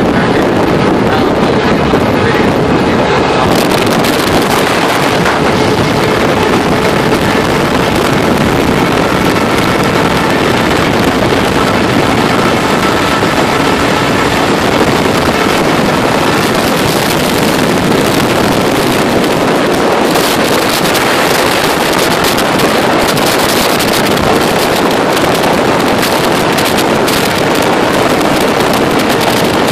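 Semi-truck diesel engine running, loud and steady, with wind noise on the microphone.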